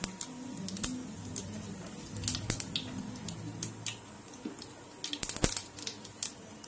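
Cumin seeds crackling and popping in hot oil, the tempering for dal: irregular sharp crackles, with a louder pop about five and a half seconds in.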